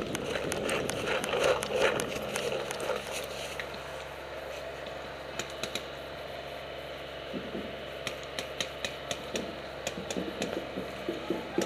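Paintball markers firing in scattered bursts of sharp pops, becoming quicker, about four shots a second, near the end. In the first few seconds there is a rustle and crunch of dry leaves underfoot.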